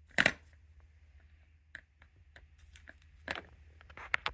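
Sharp clicks and taps of small metal sewing-machine presser feet being handled: one loud click near the start, then a cluster of lighter clicks near the end.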